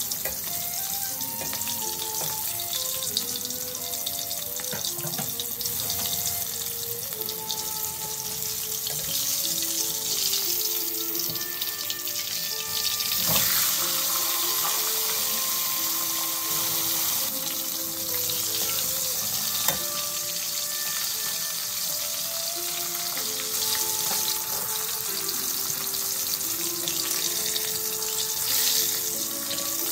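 Salmon fish head deep-frying in hot oil in a wok: a steady, dense sizzle and crackle, with a couple of sharp knocks along the way, one about halfway through and one about two-thirds of the way in.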